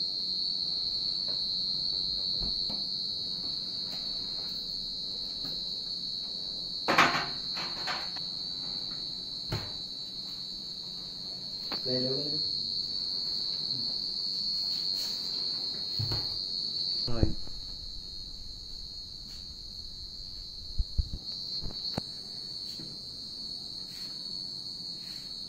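Aluminium kitchen cabinet drawers and doors being opened and shut, giving a few sharp knocks and clatters. The loudest comes about seven seconds in and a quick double knock near the end, over a steady high-pitched drone.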